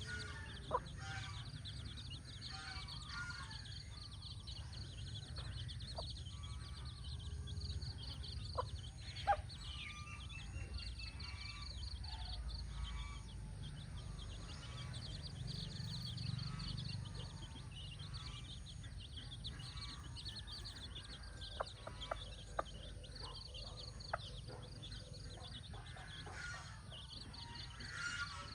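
Chicks peeping in rapid, repeated high notes, with occasional hen clucks over a steady low background rumble. A few sharp taps stand out.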